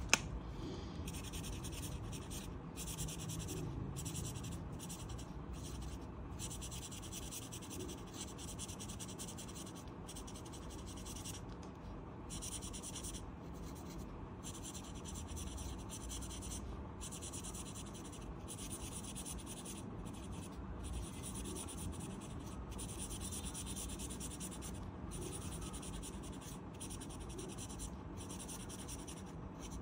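An orange crayon scratching back and forth on paper in quick colouring strokes, with many brief pauses between strokes. A single sharp click sounds just at the start.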